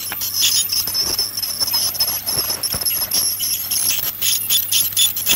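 A metal dental scaler scraping hardened tartar off a poodle's teeth: a quick, irregular run of short scratchy clicks and scrapes.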